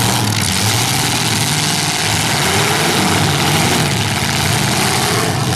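V8 engines of several demolition derby cars running loudly, their pitch wavering up and down as the drivers rev while shoving against each other.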